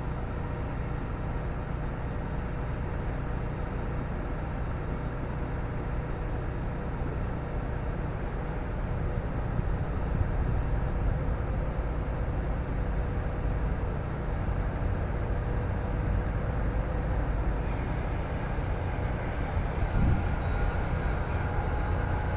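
Steady low rumble of an idling diesel train. From about three-quarters of the way in, a higher, rising sound joins it as a second train approaches around the curve.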